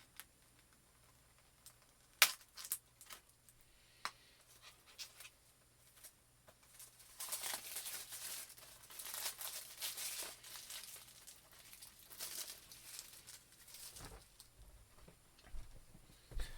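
A few sharp clicks of handling, then several seconds of packaging crinkling and tearing as a DVD is unwrapped, with a couple of dull bumps near the end.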